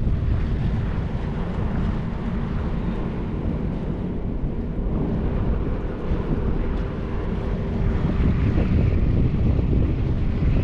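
Strong wind buffeting the microphone, a heavy, rough low rumble. Under it runs a faint steady hum that drops out near the end.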